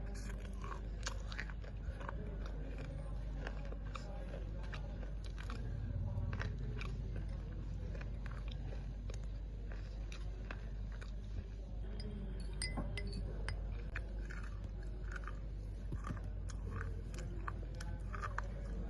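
A person biting and chewing wet slate pencils: a steady run of short, gritty crunches at irregular intervals.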